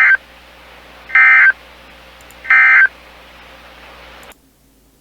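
Emergency Alert System end-of-message data bursts: three short, identical shrill warbling data tones about a second and a half apart, marking the end of the alert. A steady radio hiss sits under them and cuts off suddenly near the end as the broadcast drops.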